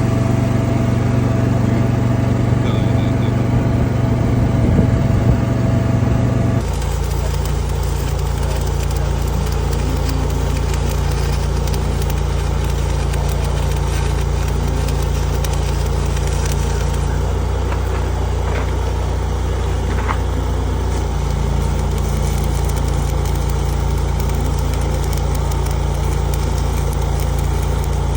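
An engine running steadily at idle. About six and a half seconds in, the sound changes abruptly to a somewhat different steady engine hum.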